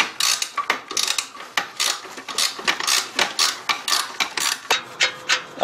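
Socket ratchet clicking in quick, even back-strokes, about four clicks a second, as a wrench cranks loose the rear exhaust manifold's down-pipe nuts.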